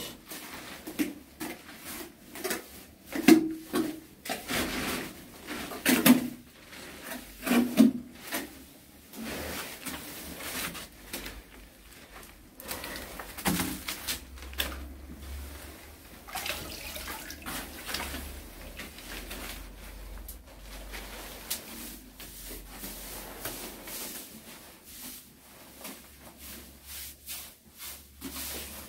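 Wet cement mortar being spread and smoothed across a floor with a trowel: irregular wet scrapes and slaps, louder and more frequent in the first several seconds.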